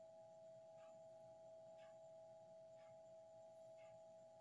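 Near silence: room tone with a faint steady two-note hum and a faint tick about once a second.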